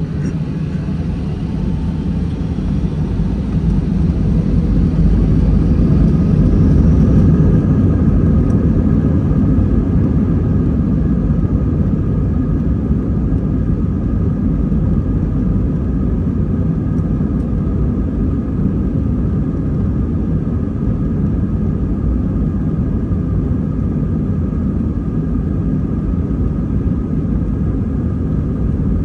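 Airbus A320's IAE V2500 turbofan engines at takeoff power: a loud, deep rumble that builds over the first several seconds, peaks, then holds steady, with a few steady whining fan tones above it.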